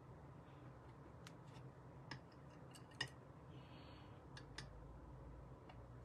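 Near silence with a few faint, sharp clicks and taps of small crafting supplies being handled on a worktop, and a brief soft rustle about halfway through.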